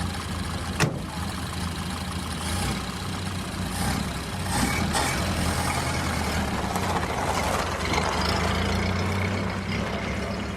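Antique car engine running steadily, with a single sharp click under a second in. Tyres crunching on gravel build up through the middle.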